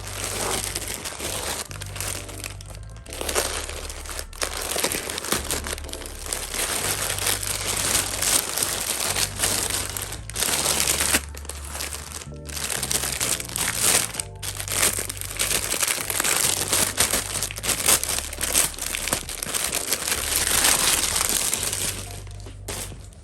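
Packaging crinkling as it is handled, in long stretches broken by short pauses, over background music with a low bass line.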